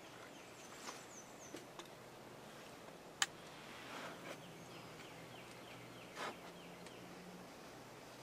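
Small songbirds singing in spring woodland: quick runs of short, falling chirps. A single sharp click about three seconds in is the loudest sound, and there is a brief puff of noise near the end.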